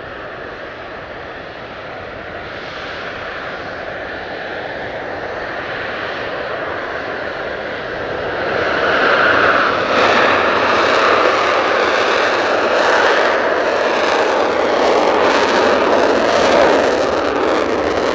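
Mitsubishi F-2 fighters' F110 turbofan engines running on the runway, slowly growing louder, then stepping up sharply about eight seconds in to a loud, crackling jet noise as the fighters accelerate for takeoff.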